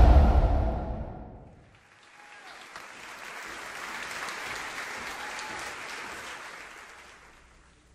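Intro music fading out over the first second or two, then audience applause that swells and dies away.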